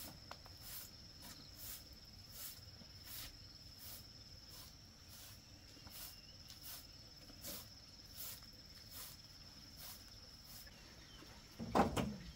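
Insects: a steady high-pitched trill that stops near the end, over short high chirps repeating a little more than once a second. A short, louder sound comes in just before the end.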